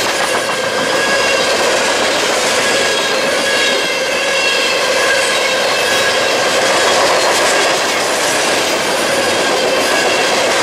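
Coke hopper cars of a freight train rolling past at trackside: a loud, steady noise of steel wheels running on the rails, with faint thin high tones of wheel squeal through the middle.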